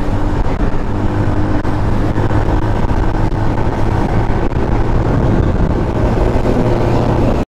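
Yamaha LC135's single-cylinder four-stroke engine running at steady highway cruising speed, with heavy wind and road noise on a helmet-mounted camera. It cuts off suddenly near the end.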